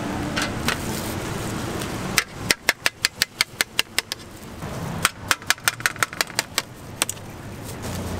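Kitchen knife chopping through a slab of watermelon onto a wooden cutting board: two quick runs of sharp taps, about six a second, with a single tap after them. Street traffic noise runs under the first two seconds.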